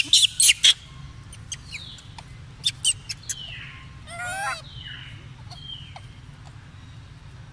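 Macaques crunching into a raw red bell pepper: a quick run of sharp bites in the first second and a few more about three seconds in. A short wavering animal call comes a little past halfway, with a few faint falling chirps around it.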